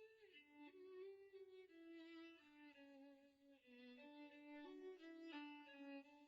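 Solo violin ringtone melody, played slowly one note at a time, with a wavering vibrato on the opening note and settling on a long held note near the end.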